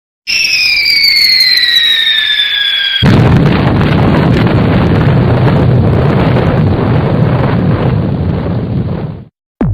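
Cartoon falling-bomb sound effect: a whistle falling in pitch for about three seconds, then a loud explosion with a long rumble that stops suddenly about six seconds later.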